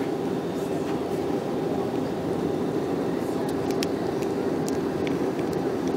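Steady cabin noise of a jet airliner in flight, engine and airflow heard from a window seat, with a few faint clicks in the second half.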